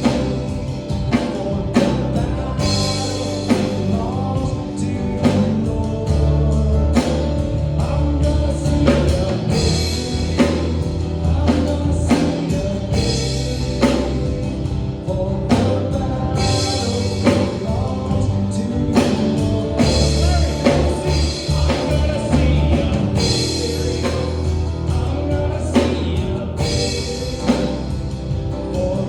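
Live worship band playing with drums, a steady beat and sustained chords, with some singing.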